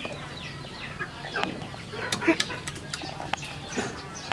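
Chickens clucking and calling in a string of short, quickly falling calls, with a few sharp clicks among them.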